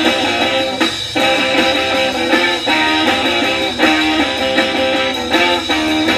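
Background music led by strummed guitar chords in a steady, repeating pattern.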